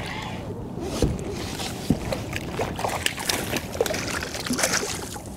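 A hooked fish splashing and thrashing at the water's surface beside a kayak as it is brought alongside and grabbed, with irregular splashes and a couple of sharp knocks about one and two seconds in.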